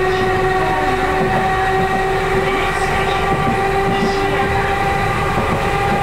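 Chikuho Electric Railroad 3000 series car running on the line, heard from inside the cab: a steady whine from the drive that edges slightly upward in pitch over a rumble of wheels on rail.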